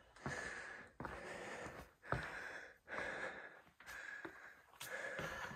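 A hiker breathing hard close to the microphone, each breath in or out about a second long, with a few sharp clicks in between.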